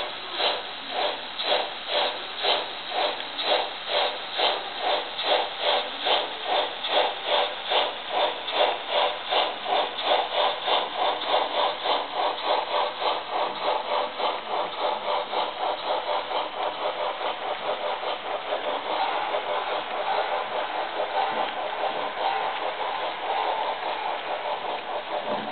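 Märklin HO scale model freight train running past on its track, with a regular beat a little over twice a second. After about ten seconds the beat quickens and blurs into a steadier rattle as the cars roll by.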